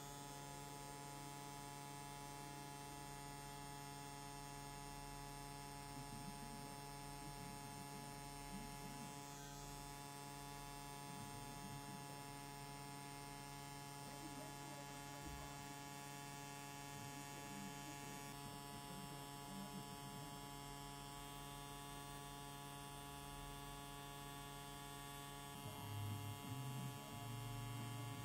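Pen-style rotary tattoo machine (Xion Pen) running steadily while lining, a faint electric hum. The low part of the hum grows louder near the end.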